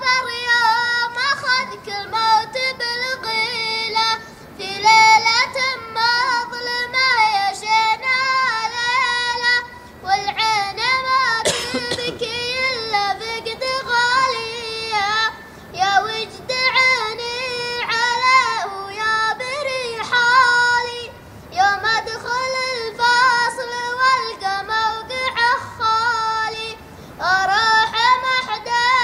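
A child's high voice chanting an Arabic poem in a sung, melodic recitation, in phrases separated by short breaths.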